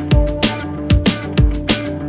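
Background music with a steady electronic beat: punchy kick drums and sharp snare or hi-hat hits about twice a second over held synth tones.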